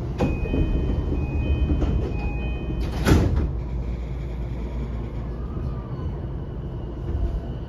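Door closing on an E233-5000 series electric commuter train: a high beeping door chime for about two and a half seconds, then the sliding doors shut with a loud thump about three seconds in, over the low steady hum of the stopped train.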